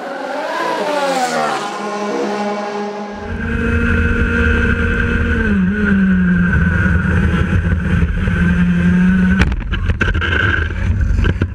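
Racing go-kart engine at high revs, recorded onboard. The pitch rises and falls over the first couple of seconds, then holds fairly steady with a brief dip about six seconds in. A low rumble joins about three seconds in, and a few sharp clicks come near the end.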